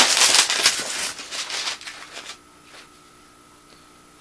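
Clattering and rustling of a plastic spring airsoft shotgun being handled, for about two seconds. Then it goes quiet apart from a faint steady hum.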